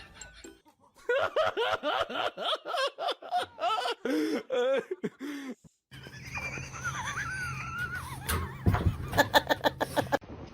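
A person laughing hard in quick, high-pitched peals for about five seconds. After a sudden break there is a steady low hum with a wavering high-pitched sound, then a quick run of sharp pulses near the end.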